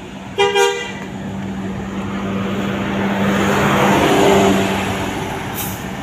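A coach's telolet horn gives a short double toot about half a second in. The bus's diesel engine then runs as it passes close by, loudest around four seconds in, with a brief hiss near the end.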